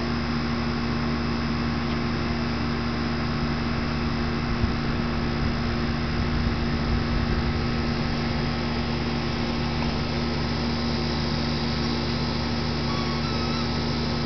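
Steady mechanical hum with a few fixed low tones, unchanging throughout. A few short high chirps come near the end.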